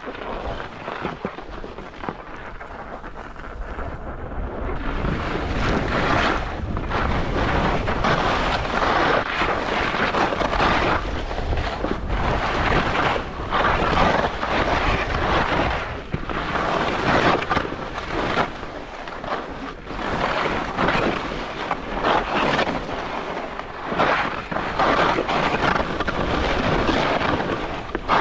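Wind rushing over a GoPro's microphone during a fast descent on snow. Under it is the hiss and scrape of edges on the snow, which swells and eases every two to three seconds with the turns and grows louder about four seconds in.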